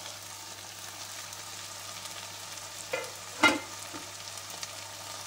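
Fried beef and its hot oil sizzling steadily in a pot of rice and vegetables. A utensil knocks against the pot twice about three seconds in, the second knock sharp and loud.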